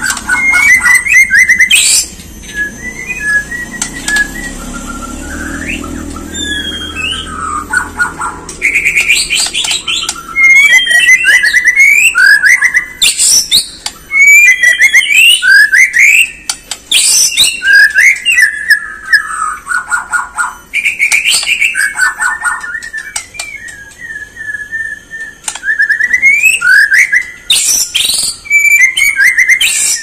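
White-rumped shama singing a loud, varied song of whistled phrases that glide up and down, in bursts separated by short pauses, with a few sharp clicks among them.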